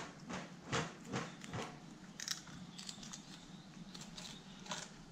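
Filleting knife cutting along the backbone of a slimy mackerel on a wooden board: a run of short, crisp cuts, two or three a second at first, then fewer and more irregular.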